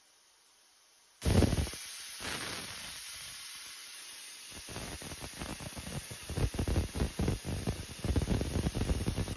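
Air plasma cutter striking its arc about a second in and cutting steel plate with a loud steady hiss. From about halfway the arc turns into a rapid, irregular crackle. It cuts off abruptly at the very end, which the owner takes for the cutter tripping the circuit breakers.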